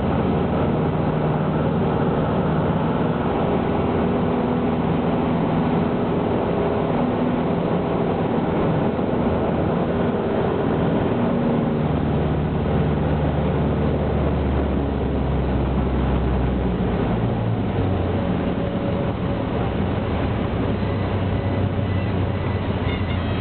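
Cessna 152's four-cylinder piston engine and propeller running steadily with airflow noise, heard from the aircraft; the engine note shifts slightly a couple of times, around halfway and about three-quarters through.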